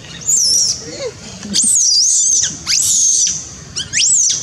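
A series of shrill, very high-pitched animal calls, about one a second, each sliding up, wavering and dropping away.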